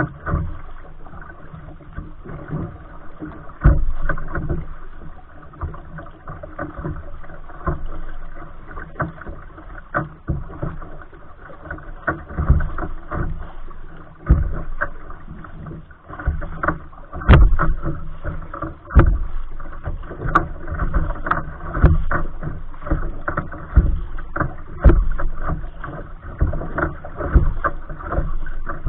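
Water slapping and splashing against a kayak's hull as it is paddled through light chop, in irregular knocks and splashes often a second or two apart, over a steady wash of water noise.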